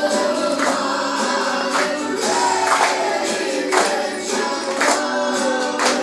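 Voices singing a song together, with a tambourine struck about once a second.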